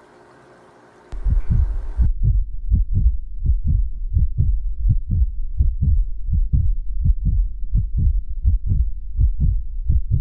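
A faint steady background hum, then about a second in a loud, deep thumping beat cuts in: evenly spaced low thumps, about three a second, with almost nothing high above them, going on steadily over the outro title card.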